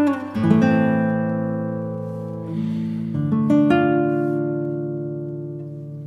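Background music: plucked guitar chords left to ring and slowly fade, with a new chord struck a few times.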